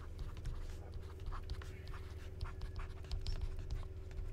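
Stylus tapping and scratching on a tablet screen while handwriting, a string of light, irregular clicks over a steady low hum.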